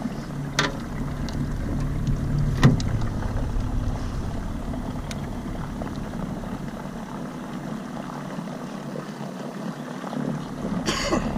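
Small john boat under way on an electric trolling motor: a steady low hum with water washing along the hull, and a couple of sharp knocks, the loudest about two and a half seconds in.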